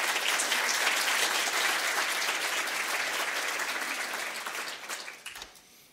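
Audience applauding, a steady wash of many hands clapping that dies away near the end.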